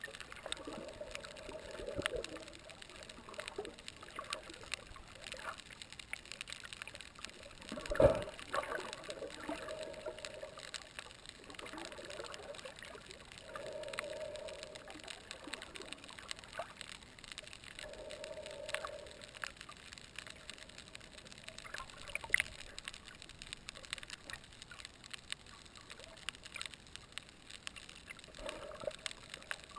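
Underwater sound picked up by a camera on a reef: a haze of water noise with scattered crackling clicks and swells of water movement every few seconds. There is one sharp knock about eight seconds in.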